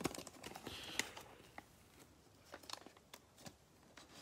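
Plastic wrapper of a Panini Prizm football card pack crinkling faintly as it is pulled open, then a scatter of light clicks and ticks as it is handled.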